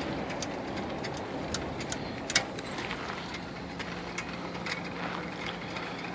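Sewer drain-cleaning cable machine running as its cable is fed down a clogged main line: a steady mechanical run with scattered clicks and rattles, one sharper click about two and a half seconds in, and a steady low hum setting in near the middle.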